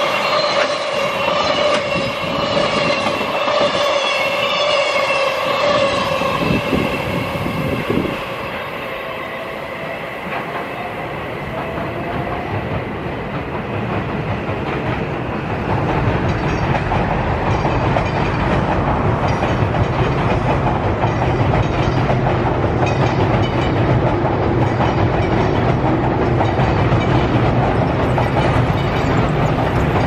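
Container wagons of an EF210-hauled freight train rolling past, with a rhythmic clickety-clack of wheels over rail joints and a steady ringing squeal. The clatter fades about eight seconds in. From about twelve seconds a rising whine and steady rail running noise build up from another train and carry on to the end.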